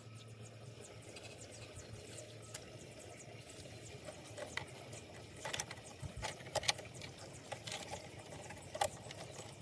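Water trickling and dripping into a curbside storm drain inlet: irregular small plops and clicks, sparse at first and busier and louder about halfway through.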